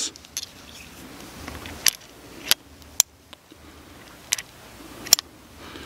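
A revolver being loaded: metallic clicks as .45 Long Colt cartridges go one by one through the loading gate of a Cimarron 1858 New Army conversion revolver and its cylinder is turned chamber by chamber at half cock. About five sharp clicks, roughly a second apart, starting about two seconds in.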